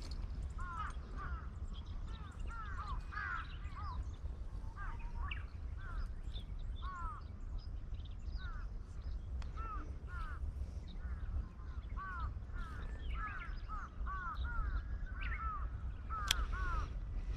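Birds calling over and over, many short rising-and-falling calls, sometimes overlapping, over a steady low rumble.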